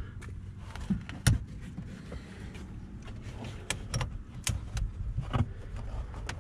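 Scattered metallic clicks and taps as the negative battery cable clamp is fitted back onto a car battery terminal, with one sharper knock about a second in, over a low steady rumble.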